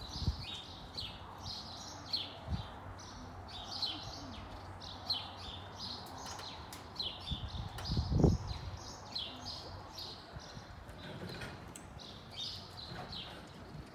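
Small birds chirping rapidly and repeatedly under the arena roof, with scattered dull hoof thuds on the arena footing and one louder low thump about eight seconds in.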